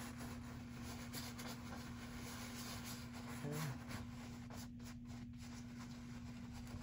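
Bristle paintbrush scratching and patting on a stretched canvas in soft, irregular strokes, over a steady low hum.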